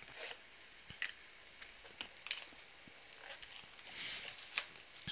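Plastic shrink wrap being cut and peeled off a cardboard trading-card blaster box: faint crinkling rustles with scattered small clicks and taps, the crinkling heaviest near the end.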